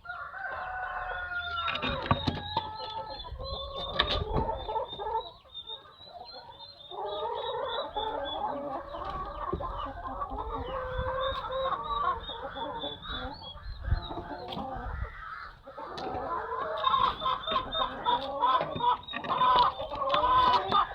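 A flock of chickens clucking and calling over one another, with scattered sharp knocks.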